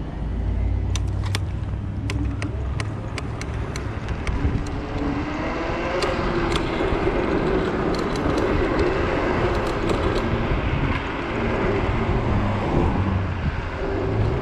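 Riding noise from a Zero 10x electric scooter on city streets: a steady rumble of wind and road, with vehicle traffic around it. Scattered sharp clicks or rattles come through during the first ten seconds.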